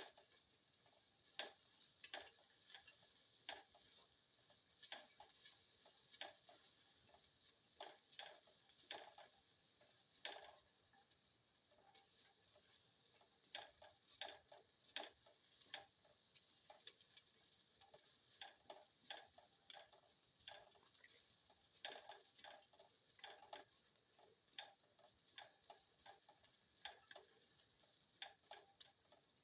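Faint, irregular clicks and taps of a cooking utensil against a pan as garlic and shallots are stirred and sautéed, sometimes several in quick succession, over a faint steady hiss.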